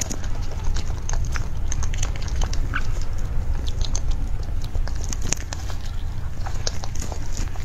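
Close-up eating of soft mousse cake: many short, sharp mouth and chewing clicks, with a metal spoon scraping and tapping the cake board, over a steady low hum.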